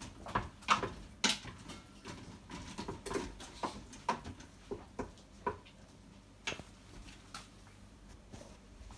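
Spoon stirring thick cheese grits in an Instant Pot's stainless steel inner pot, knocking and scraping against the pot in irregular clinks, a few a second, growing sparser in the last few seconds.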